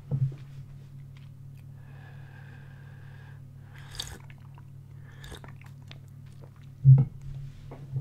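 Sipping tea from a glass mug: a soft, drawn-in slurp lasting about a second and a half, followed by a few small clicks and a short dull thump near the end, over a steady low hum.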